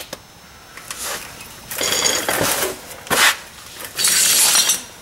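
Metal tools and parts being handled at the brake: clinks and rattles with a brief metallic ring, then a longer scraping rustle about four seconds in.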